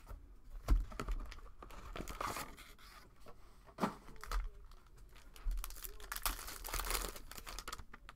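A Panini Mosaic basketball card pack being torn open, its wrapper crinkling in irregular bursts, with sharp crackles about a second in and again near the middle.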